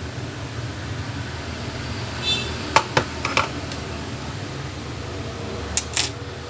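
Steady low hum of a fan on a repair bench, with a few light clicks and taps of small tools, a cluster about halfway through and two more near the end.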